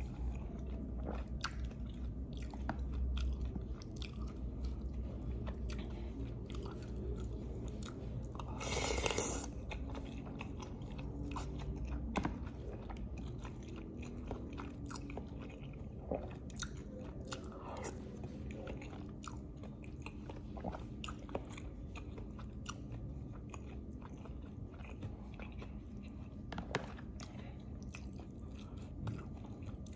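Close-miked person eating lontong with green chillies: steady chewing with many small wet clicks and bites. One brief louder rushing sound about nine seconds in.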